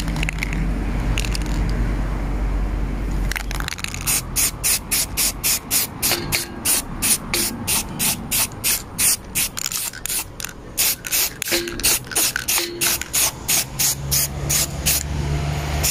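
Aerosol spray-paint can spraying in short, quick bursts, about three a second, starting about four seconds in.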